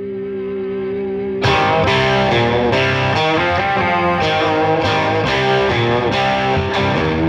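Background music: a held, wavering tone swells up, then about a second and a half in a band with distorted electric guitar comes in with a steady beat.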